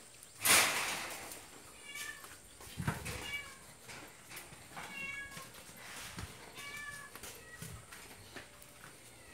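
A domestic cat meowing several times in short calls. A brief loud rushing noise comes about half a second in, louder than the meows.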